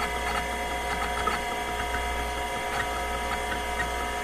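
A steady electronic drone: a low hum under a held chord of several steady tones, with faint scattered ticks.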